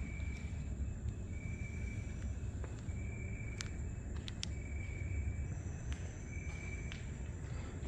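Night insects chirping: a short trill of about half a second that repeats roughly every second and a half, over a steady high whine and a low rumble. A few faint clicks come near the middle.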